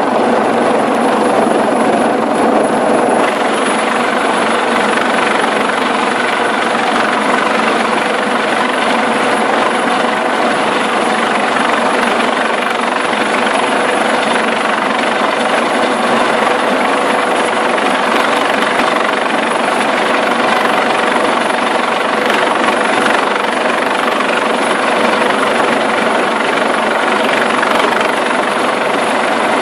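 Eurocopter AS365 Dauphin helicopter hovering low, its rotor and turbines running loud and steady, with a steady hum underneath.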